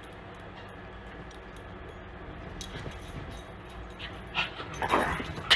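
A dog whimpering, with short, louder pitched cries in the last second or so.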